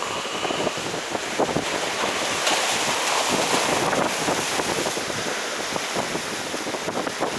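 Wind buffeting the microphone over waves washing at the shore, with a stretch of louder rushing about two and a half seconds in.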